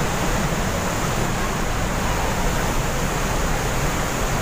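Glacier-fed waterfall rushing through a narrow rock gorge: a steady, loud rush of falling water.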